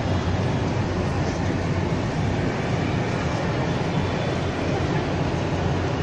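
Steady low rumbling street noise from a road of slow-moving cars, with no single sound standing out.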